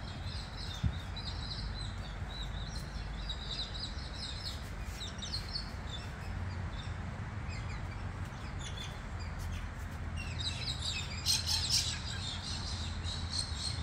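Small birds chirping and twittering in the background, with a louder flurry of chirps near the end, over a steady low rumble.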